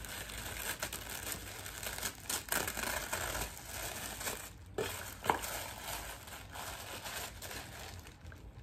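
Tissue paper wrapping rustling and crinkling as it is unfolded and pulled out of a gift box, with a few sharper snaps in the middle.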